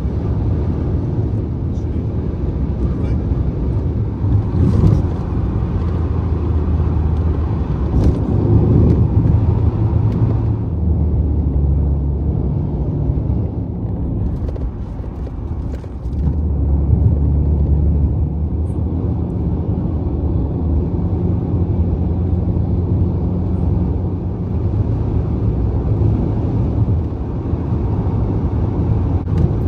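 Steady low rumble of tyre and engine noise inside a car's cabin at highway speed, its low drone shifting in pitch a couple of times.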